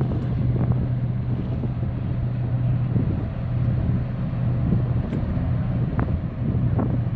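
A boat's engine running steadily as a low drone, with wind blowing over the microphone.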